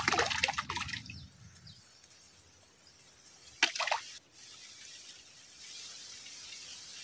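Water splashing as a fish strikes at the bait by the fishing float, a churning splash that dies away over about two seconds. A second, shorter splash comes about halfway through.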